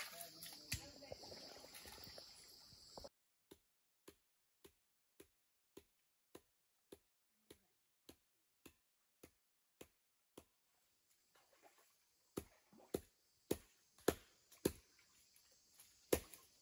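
A wooden stick pounding barbasco roots on a log at the stream's edge, crushing them to release their fish poison: a run of short, dull knocks, about one and a half a second, faint at first and louder in the last few seconds. Water sloshes and splashes in the opening few seconds.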